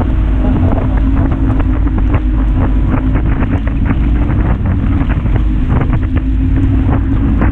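Motorboat engine running steadily with a constant hum, under heavy wind buffeting on the microphone and many short sharp crackles.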